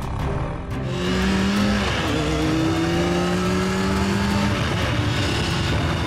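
Motor vehicle engine running with a steady hum. Its pitch dips briefly about two seconds in, then climbs slightly, and the hum stops about four and a half seconds in.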